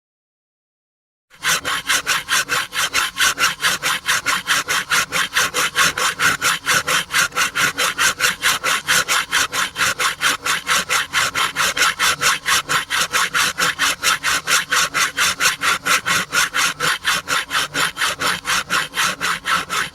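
Handsaw cutting wood with fast, even back-and-forth strokes, about four a second, starting after a second and a half of silence.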